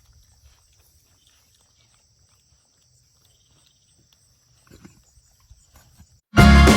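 Faint pig grunts and snuffling, with one slightly louder grunt near five seconds in, then music starts suddenly and loudly near the end.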